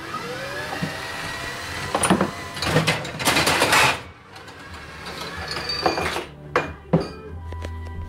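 A small motor-driven bottle-dispensing mechanism in a homemade beer fridge running, with sharp clicks and a loud rattle lasting about a second near the middle, over background music.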